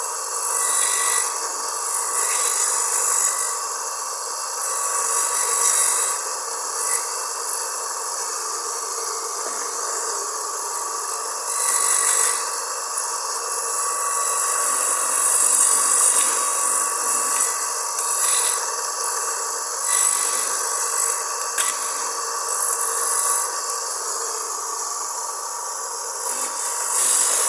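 Homemade electric coconut grater, driven by a salvaged water-pump motor, running with a steady whine while coconut is pressed against the spinning grater blade, giving a rasping sound that swells and fades in repeated surges.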